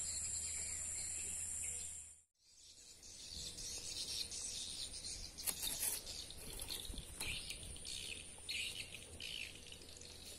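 Outdoor insect and bird ambience. A steady high insect drone cuts off suddenly about two seconds in, then short high chirps of birds and insects follow, with a couple of faint knocks.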